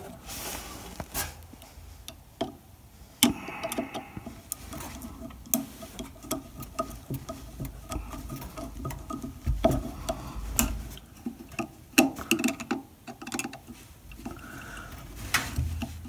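Irregular small clicks, ticks and scrapes of a screwdriver working a terminal screw on a doorbell transformer, with the thin doorbell wires being handled and wrapped under the screw.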